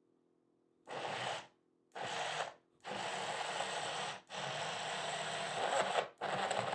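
Countertop blender motor run in pulses, starting about a second in: two short bursts, then longer runs of one to two seconds, each cut by a brief stop.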